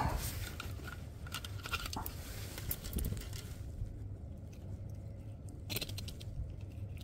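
Close handling noises of a freshly caught hairtail being dealt with over a plastic fish box: scattered clicks, taps and rustles, busy for the first half, then quieter, with a short cluster of sharp clicks near the end, over a low rumble.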